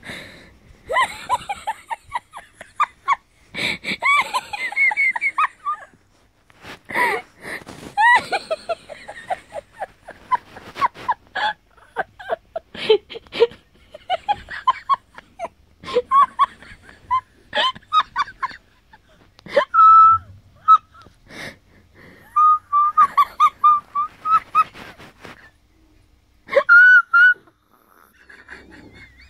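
A person's high-pitched, squeaky fits of crazy laughter in quick bursts, with short breaks in between.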